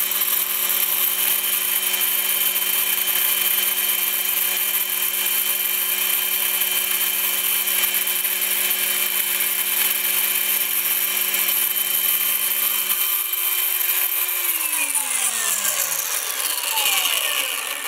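Angle grinder mounted in a lathe tool post running steadily as it grinds the end of a turned metal blank, forming a shallow dish. A lower hum stops about thirteen seconds in, then the grinder is switched off and winds down, its pitch falling, near the end.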